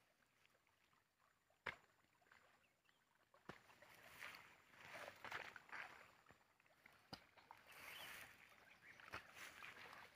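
Faint sloshing of shallow muddy water and rustling of grass as something moves through a flooded field edge, with a few sharp ticks. It is almost silent for the first three seconds or so, apart from one tick.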